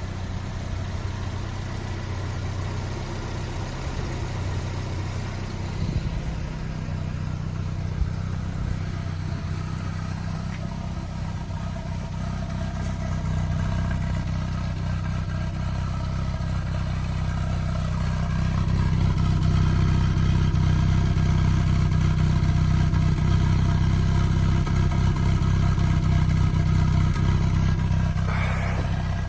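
Triumph Spitfire Mk IV's 1296 cc four-cylinder engine running through its stock exhaust, a steady hum that grows louder about two-thirds of the way through and holds there.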